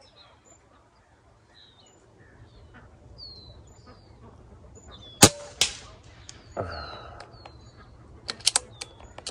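A scoped pellet air rifle fires once about five seconds in, a sharp crack, and about a third of a second later a second crack with a short ring as the pellet strikes the metal reset target downrange. Near the end come a few sharp clicks as the action is cycled for the next pellet, over small birds chirping.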